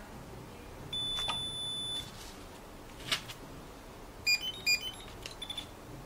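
ETEKJOY ET916 RFID cabinet lock beeping. About a second in, one long steady high beep sounds as the reset button is held in with a screwdriver, which signals that the lock has been reset. A sharp click follows, then two short, louder beeps, and a few quick short beeps near the end.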